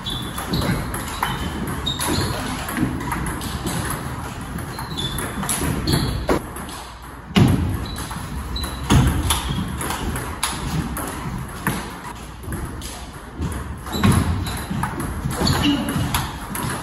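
Table tennis rally: the ball knocking off rubber-faced paddles and bouncing on the table in a quick, irregular patter, with a few harder hits standing out.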